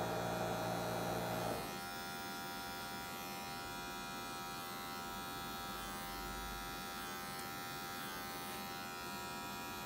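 Cordless electric hair clipper buzzing steadily as it cuts hair in a low fade on the side of the head. About a second and a half in, a lower hum drops away and it runs a little quieter.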